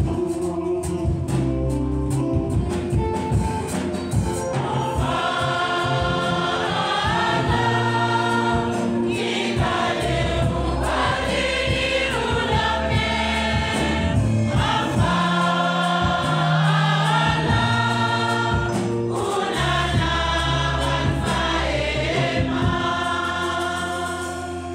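A church choir and congregation singing a hymn together over steady low bass notes from an instrument. The singing grows fuller about five seconds in.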